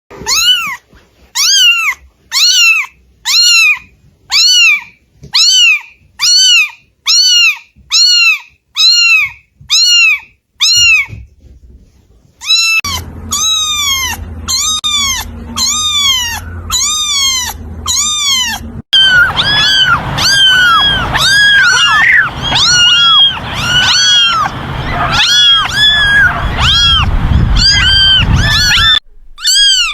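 Domestic cats meowing over and over: short meows rising then falling in pitch, about one a second. Near the middle a low hum comes in underneath, and later the meows crowd and overlap over a noisy background, several at once.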